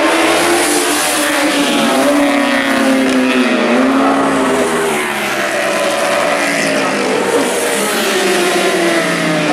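1000cc four-stroke superbike racing motorcycles at speed on a street circuit, engine notes rising and falling in pitch as they come through, loud throughout.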